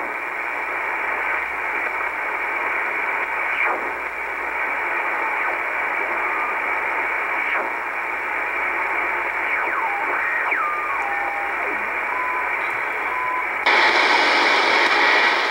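Icom IC-R8500 receiver giving out shortwave static in upper-sideband mode while it is tuned across the 14 MHz utility band, with faint whistles gliding in pitch as signals pass by and a few short steady tones. Near the end the hiss suddenly gets louder and brighter as the receiver is switched to AM.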